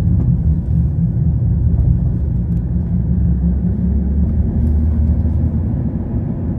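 A car driving on a road, heard from inside the cabin: a steady low rumble of engine and road noise.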